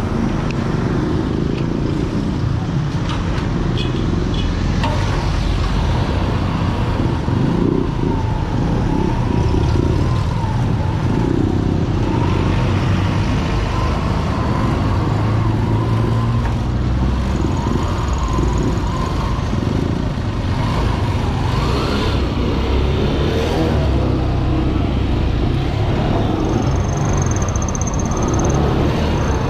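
Motorcycle-with-sidecar tricycle riding through street traffic, heard from the rider's seat: the engine runs steadily under a dense low rumble of road and motion noise.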